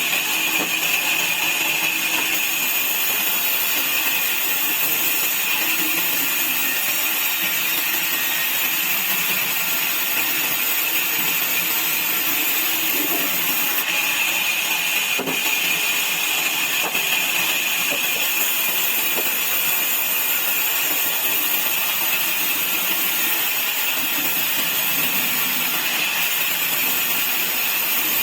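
Sawmill saw running steadily as it cuts wood, a continuous loud hiss and whine.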